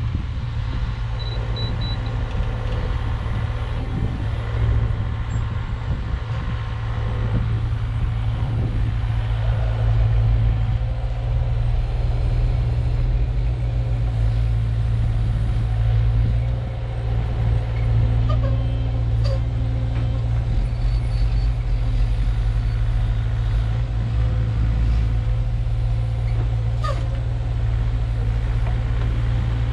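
Caterpillar mini excavator's diesel engine running steadily under load as it digs a trench, with a few sharp clicks in the second half.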